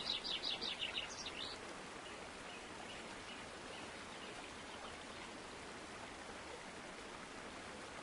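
Steady outdoor hiss with a bird's quick run of high chirps in the first second and a half, then fainter scattered chirps.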